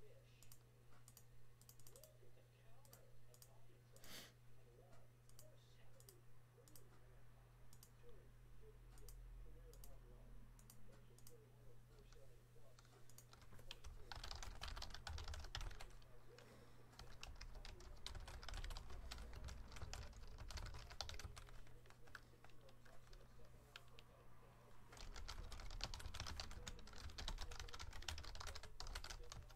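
Computer keyboard being typed on: scattered single key clicks at first, then about halfway through, a fast run of typing that pauses briefly and starts again near the end. A steady low electrical hum runs underneath.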